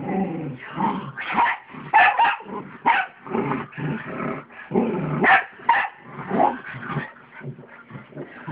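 Two small dogs, a pug and a mixed-breed, growling and barking as they play-fight, in short irregular bursts.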